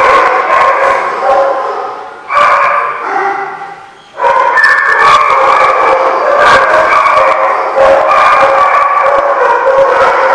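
Several dogs barking and howling over one another in a loud, continuous din, with brief lulls about two and four seconds in.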